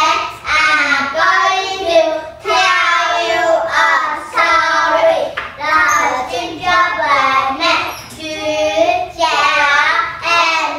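A few young children singing together in short phrases, with brief breaks between them.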